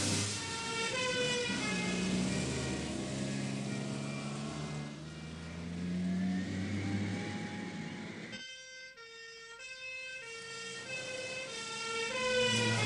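Two-tone ambulance siren, switching between a high and a low note about every half second.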